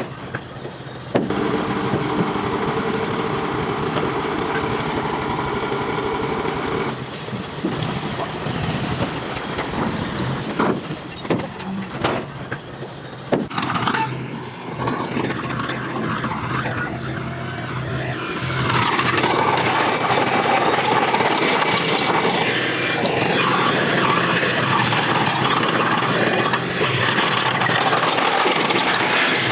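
Heavy diesel earthmoving machinery working: an engine runs steadily with a droning tone at first, then gives way to rougher clattering. Past the halfway mark a louder, dense, noisy rumble takes over.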